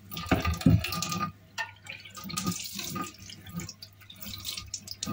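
Water from a kitchen tap running unevenly into the sink, splashing and clattering as something is rinsed under it.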